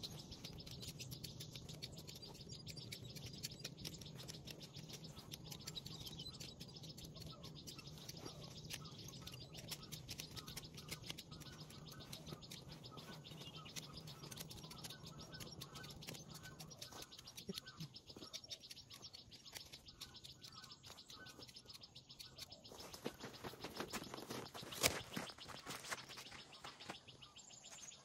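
Outdoor ambience of birds chirping and insects, with a faint low hum that stops about two-thirds of the way through and a single sharp click near the end.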